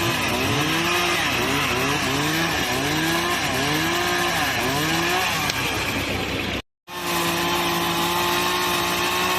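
Chainsaw cutting through a fallen tree, its engine speed rising and falling over and over as the chain bites into the wood. After a sudden short break about two-thirds of the way in, it runs at a steady high speed, then starts surging again near the end.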